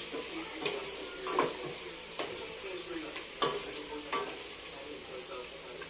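Food sizzling in hot oil and butter in a pan while being stirred, with a utensil knocking and scraping against the pan about six times.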